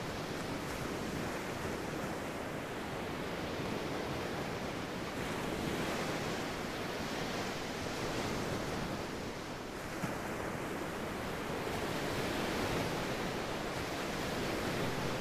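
Ocean surf: a steady wash of wave noise that swells and eases every few seconds.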